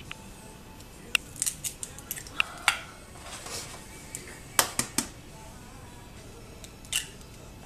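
Raw eggs being cracked open by hand, the shells breaking with a series of sharp cracks and clicks, most of them in the first five seconds and one more near the end.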